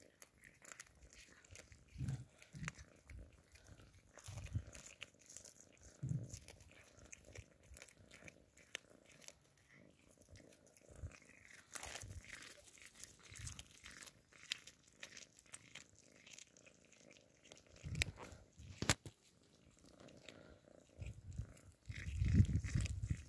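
Two young cats chewing and biting into small raw fish: irregular crunches and clicks of teeth on flesh and bone, denser and louder near the end.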